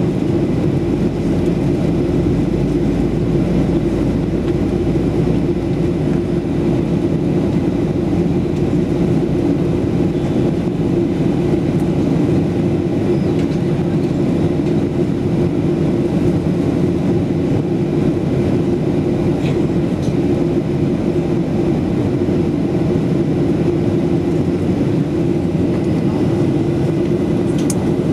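Steady in-flight cabin drone of a Boeing 737-8200 (737 MAX) heard from a window seat: the CFM LEAP-1B engines and the airflow over the fuselage make a continuous low rumble that stays even throughout.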